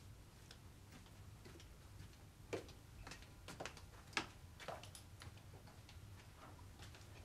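Faint footsteps clicking on a hard floor as a person walks across a room, with two louder knocks about two and a half and four seconds in, over a low steady hum.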